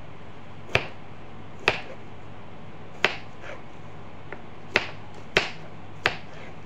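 A kitchen knife chopping through cucumber onto a plastic cutting board: six sharp, separate chops at an uneven pace, with a low steady hum underneath.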